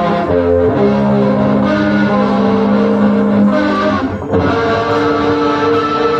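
Live rock band music: electric guitar chords ringing out over bass, held long, with a chord change about four seconds in.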